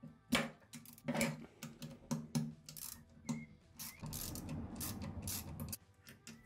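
Hand ratchet and metal knocks while a Honda lawn mower engine is dismantled: a string of sharp clicks and knocks against the aluminium crankcase, then a fast, continuous ratchet clicking from about four seconds in that stops suddenly near the end.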